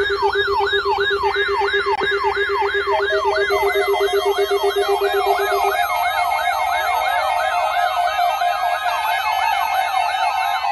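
Several electronic siren and alarm tones layered together: a fast warbling siren at about three cycles a second, over a low rapid beeping that stops about six seconds in, with a higher pulsed beep joining about three seconds in and a rising tone near seven seconds.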